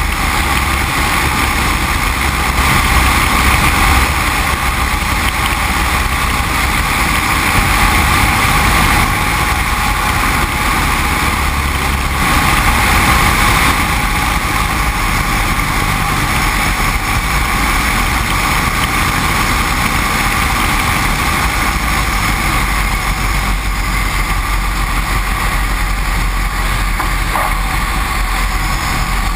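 Great Lakes 2T-1A-2 biplane's four-cylinder Lycoming engine and propeller running steadily, heard together with the rush of air over the aircraft.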